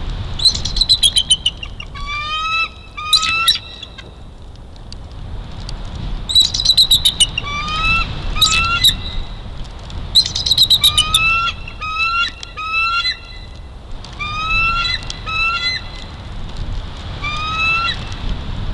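Bald eagle calling: about five bouts of a high, rapid chatter, each a quick run of sharp notes followed by a few rising, piping whistled notes.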